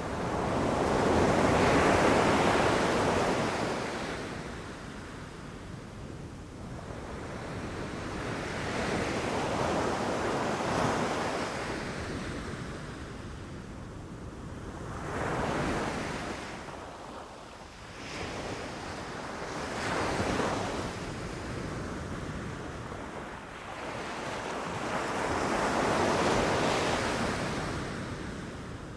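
Ocean waves breaking and washing up on a beach: five swells of surf, each building and fading over a few seconds, the loudest about two seconds in.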